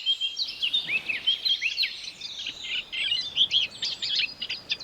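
A warbler singing: a fast, unbroken run of short, varied chirping and warbling notes.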